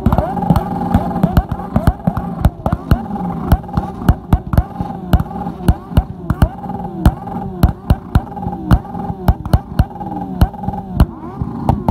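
Several sport motorcycle engines held at the rev limiter together, a steady high engine note broken by rapid, irregular exhaust cracks several times a second as the limiters cut in.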